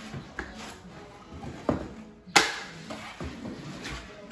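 Metal taping knife scraping and knocking against a mud pan and the drywall as joint compound is loaded and spread into an inside corner: a few short scrapes and knocks, with one sharp clack a little over two seconds in.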